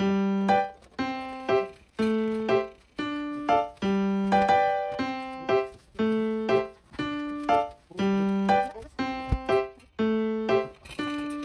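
Background music: a simple, bouncy piano-style keyboard tune in a steady rhythm, repeating a short phrase.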